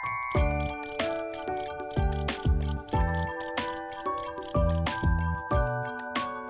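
Cricket chirping in a high, evenly pulsed trill of about four chirps a second, which stops about five seconds in. Under it plays bouncy background music with a steady beat.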